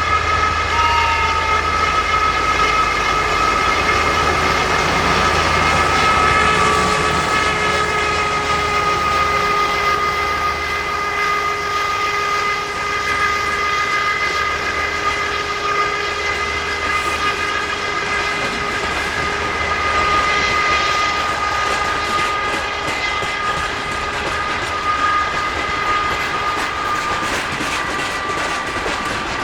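Freight train hauled by a 2TE10UK diesel locomotive, with a steady whistling tone at several pitches that drifts slowly lower, over the rumble and clatter of the train's wheels. This tone is the strange sound the locomotive is noted for.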